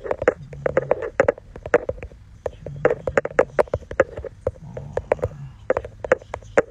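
A rapid, irregular run of light clicks or taps, several each second.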